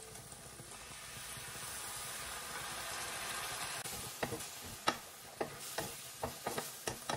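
Chicken frying in a pan, a steady sizzle that builds over the first few seconds. From about four seconds in, a utensil knocks against the pan as the food is stirred, about two knocks a second.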